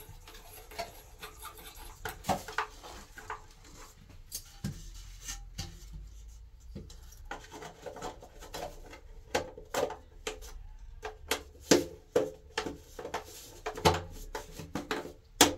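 Plastic clicks, knocks and rubbing as the ribbed plastic cover of an oval wall light is pressed and worked onto its base. The clicks are irregular and come several times, the sharpest in the second half.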